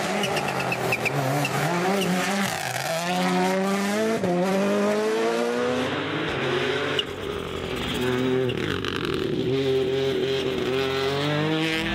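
Rally car engine running hard, its pitch climbing and dropping repeatedly through gear changes. The sound changes abruptly about six to seven seconds in.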